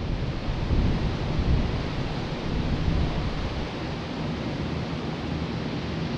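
A large group of electric fans (box, pedestal, table and floor fans) running together, a steady rush of moving air, with gusty low rumbling from air buffeting the microphone, strongest in the first couple of seconds.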